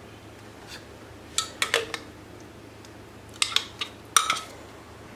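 A metal spoon clinking and scraping against a blender jar as the last of the tomato sauce is scooped out onto the pizza crust, in two short clusters of sharp clinks about a second and a half in and again around three and a half to four seconds in.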